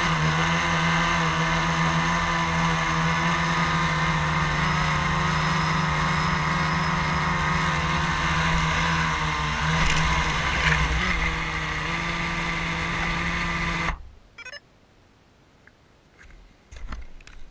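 Blade 350 QX quadcopter's electric motors and propellers whirring steadily, heard close from the onboard camera. The pitch wavers briefly as it comes down onto the grass, then the motors cut off suddenly about fourteen seconds in, leaving only a few faint clicks.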